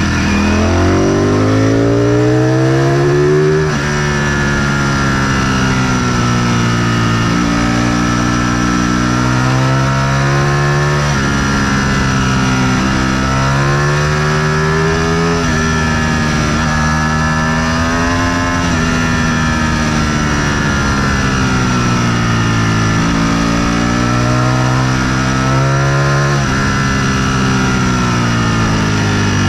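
Sport motorcycle engine under power, its note climbing through the revs and dropping back several times as it goes through the gears.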